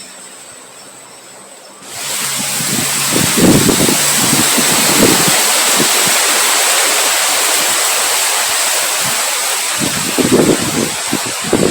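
Strong wind: a loud, steady rushing hiss that comes in abruptly about two seconds in, with irregular low gusts buffeting the microphone.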